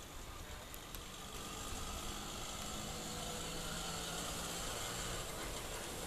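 An engine running steadily in the background, a low hum that grows slightly louder.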